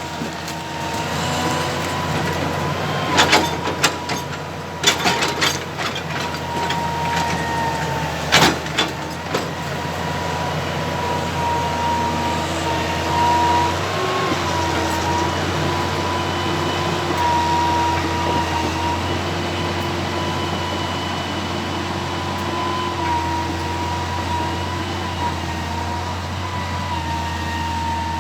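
Excavator's diesel engine running steadily under a high, held hydraulic whine. There is a cluster of sharp knocks about three to five seconds in and another about eight seconds in, as logs are gripped and stacked.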